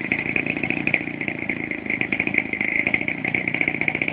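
Fuji 50cc two-stroke petrol engine of a large RC model airplane running at a steady speed, a fast buzzing rattle.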